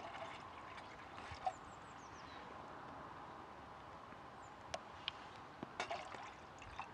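Water trickling faintly as it is poured into a small titanium mug, with a few light clicks and taps.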